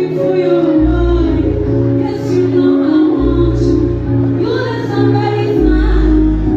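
A song with a woman singing over deep, held bass notes.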